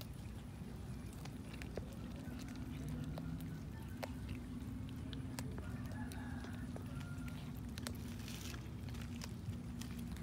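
Several cats chewing raw fish, with scattered small clicks and crunches, over a low steady hum through most of it.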